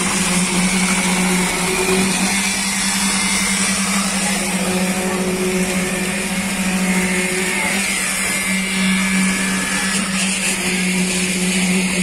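Concrete-pouring machinery running at a steady speed, giving a constant even hum.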